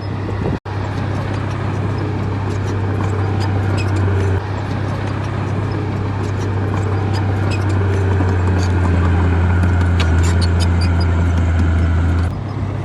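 Heavy earthmoving machine's diesel engine running steadily under load, with scattered metallic clanks and rattles. The sound drops out for an instant about half a second in.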